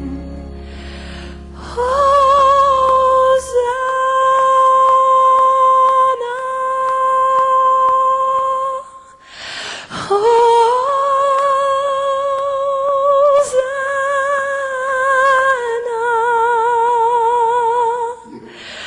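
A single voice in a gospel worship song holding two long, wavering notes that step up and down in pitch, with a short break for breath about nine seconds in. A low sustained accompanying note fades out about four seconds in.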